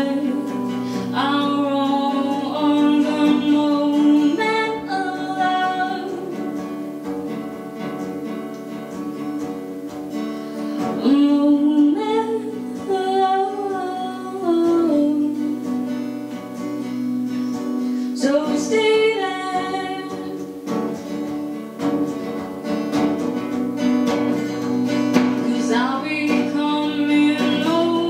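A woman singing a song to her own acoustic guitar accompaniment, sung phrases over steady guitar chords throughout.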